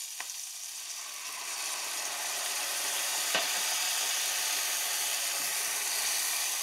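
Red wine sizzling as it hits a hot pan of browning mushrooms, onions and garlic. The hiss builds over the first few seconds and then holds steady, with a single light click about three seconds in.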